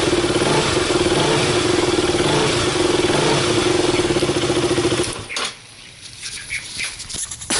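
KTM RC 200's single-cylinder four-stroke engine running steadily, now that the burned termination unit is bypassed with a jumper wire across the relay. The engine is shut off about five seconds in, and a few light clicks follow.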